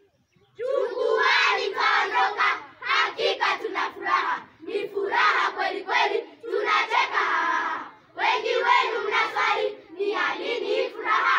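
A group of young children singing a Swahili shairi (poem) together in unison. It starts about half a second in and goes in short phrases with brief pauses between them.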